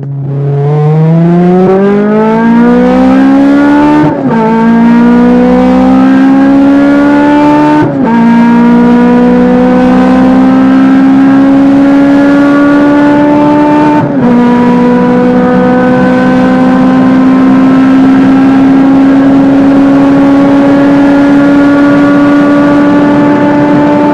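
Honda Civic four-cylinder VTEC engine and exhaust accelerating hard through the gears. The revs climb and drop sharply at upshifts about 4, 8 and 14 seconds in, then rise slowly in the higher gear.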